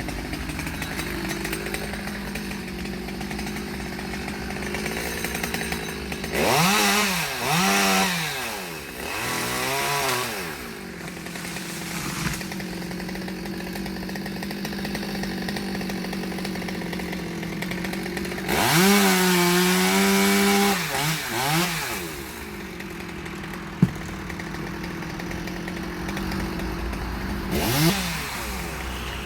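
Chainsaw idling steadily, revved up hard in bursts: two long runs about six and eighteen seconds in, and a short one near the end, the pitch rising and falling with each cut. A single sharp knock comes about two-thirds of the way through.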